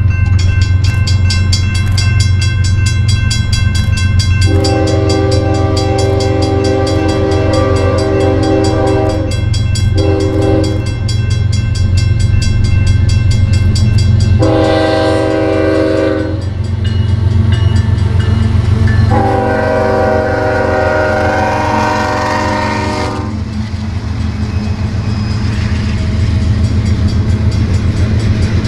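Diesel freight locomotive sounding its air horn four times, a long blast, a short one and two more long ones, over the steady rumble of the engine and the rapid clickety-clack of wheels on the rails as the train passes.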